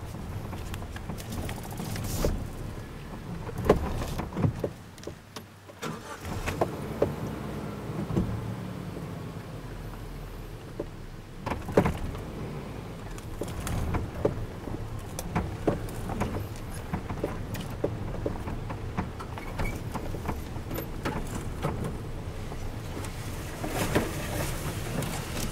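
Off-road 4x4 crawling slowly over deep ruts, its engine running at low revs, with frequent short knocks and rattles from the body and suspension as it lurches over the ruts.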